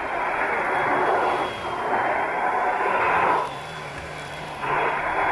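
Kenmore Powermate Compact canister vacuum cleaner running with a steady high motor whine over the rush of air. The rush swells and drops back twice as the vacuum is worked.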